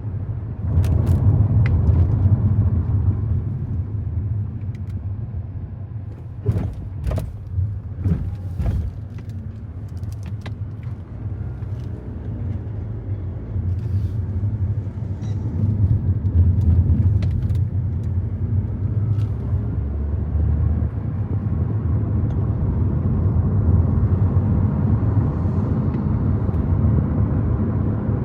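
A car being driven, with a steady low rumble of road and engine noise. A few short clicks and knocks come about a quarter of the way in.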